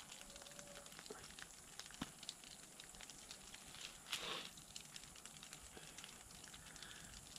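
Faint crackling and rustling as a squirrel's hide is pulled off the carcass by hand, with one short tearing rasp about four seconds in.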